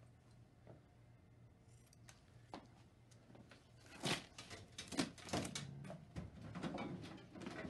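Rustling and crackly clicks of gloved hands handling and wrapping a gauze bandage, starting about halfway through and continuing as a quick irregular run, over a faint low hum.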